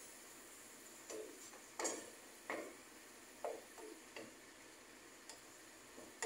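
Wooden spatula stirring ground pork in a nonstick frying pan, giving about six short separate scrapes and knocks against the pan, roughly one every second.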